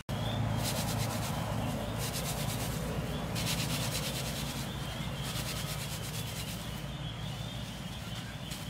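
Hands rubbing and stripping bundles of freshly cut rice stalks: a steady, dense dry rustling and scraping as the stalks and panicles rub together on a wooden board, threshing the grains loose by hand.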